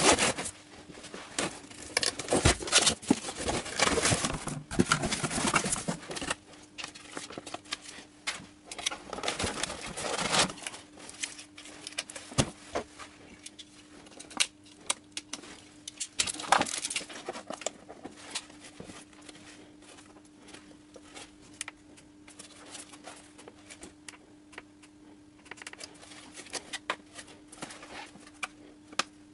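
A cardboard box and its packing being handled while a jump starter is unpacked: cardboard rustling and scraping, and plastic parts clicking and knocking. It is dense for about the first ten seconds, then comes as sparser clicks and knocks. A faint steady hum runs underneath.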